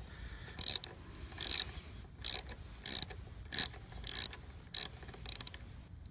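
Ratchet socket wrench clicking in short rasps, about eight of them at a steady pace, as it is swung back and forth to undo the lock nut on a motorcycle brake lever pivot.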